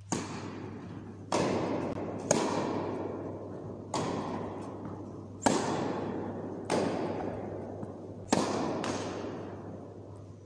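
A tennis ball is hit back and forth with racquets and bounces on a carpet court during a rally, about eight sharp hits in ten seconds. Each hit rings on with a long echo in the large indoor hall, over a steady low hum.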